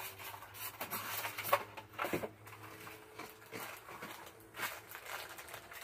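Faint, scattered clicks and knocks of small objects being handled on a tabletop.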